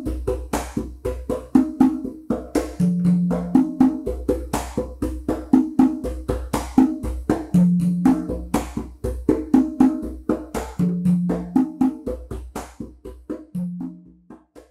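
Hand-played conga drums in a son montuno groove: sharp slaps and muted strokes with a deep open tone ringing out every few seconds, over a fast clicking wood-block-like rhythm. The groove fades out near the end.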